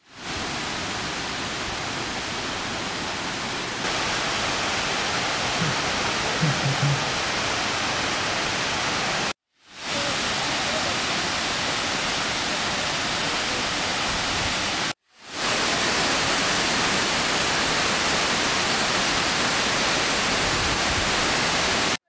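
Waterfall: a steady, even rush of falling water. It cuts out briefly twice, about nine and a half and fifteen seconds in.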